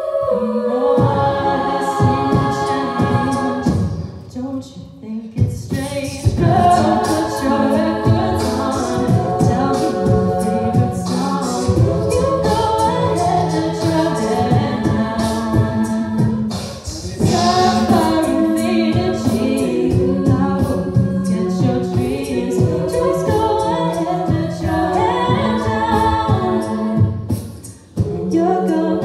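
All-female a cappella group singing a pop song: a lead voice over layered backing harmonies, with beatboxed vocal percussion keeping the beat. The sound dips briefly a few times between phrases.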